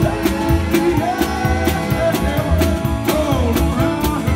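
Live band playing an upbeat rock-and-roll number: a drum kit keeping a steady, quick beat under guitars.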